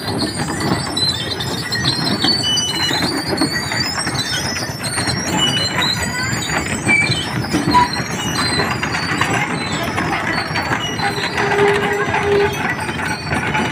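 Wooden ox carts with solid wooden wheels rolling past, their wooden axles squealing and creaking in many short, shifting high notes over a steady rolling rumble. A lower, drawn-out moan sounds for about a second near the end.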